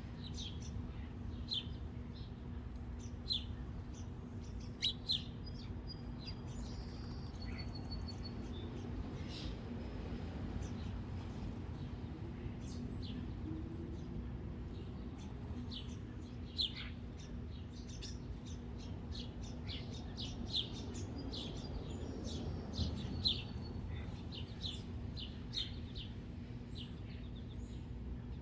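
Small birds chirping, short high chirps scattered irregularly throughout, over a steady low hum.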